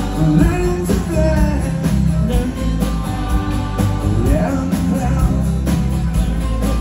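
Live rock band playing, an acoustic guitar strummed over bass and drums at a steady level.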